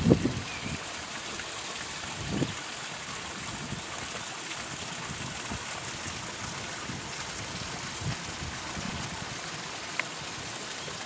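Steady rush of water falling and running in a small garden waterfall, with a couple of low bumps near the start and one short click near the end.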